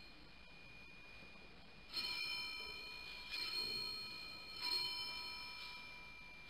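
Altar bell struck three times, about a second and a half apart, each ring fading away, marking the elevation at the consecration of the Mass.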